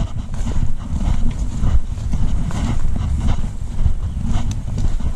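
Wind buffeting the camera microphone: a loud, uneven low rumble, with a few light clicks of the camera being handled.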